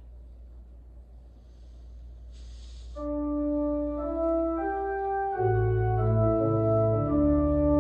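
Organ beginning a hymn introduction about three seconds in: sustained chords of held notes, with deep pedal bass notes joining a little over halfway through and the music growing louder. Before it there is only a low hum and a brief hiss.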